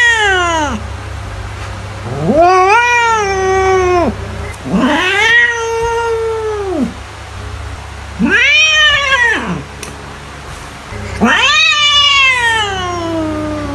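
A domestic cat yowling: a run of long, drawn-out meows, the tail of one and then four full ones, each about two seconds long and rising then falling in pitch.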